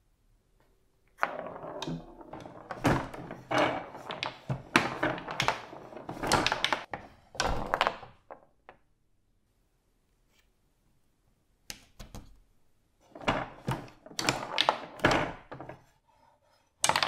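Knocks and clatter from a Homas table football game being played, as the players strike the ball and it hits the table. The hits come in two busy runs, with a quiet gap of a few seconds in the middle.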